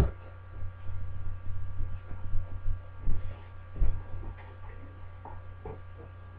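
Steady low electrical hum, with a sharp knock at the very start and a few fainter knocks and thumps later on.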